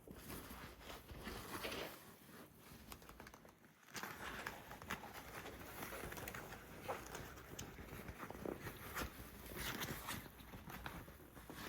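Faint handling noise: scattered light clicks, taps and rustles as the animatronic's arm and cable are worked by hand.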